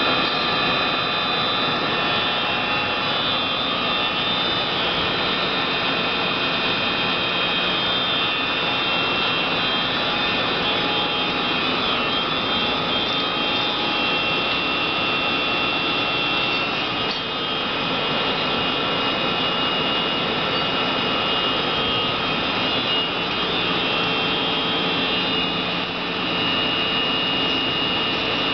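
Polamco TUR-710 engine lathe running steadily while turning a long shaft, its headstock gearing giving a steady high whine over the machine's hum.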